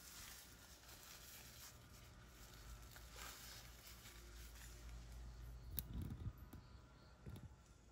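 Near silence: room tone with a faint steady low hum, a brief click near the end and a couple of soft thumps.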